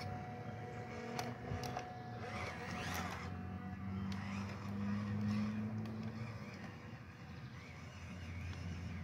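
Electric motor and gear drive of an FMS Chevrolet K10 mini RC crawler running steadily as the truck crawls over tree roots and across dry leaves. There are a few sharp clicks and crackles in the first few seconds.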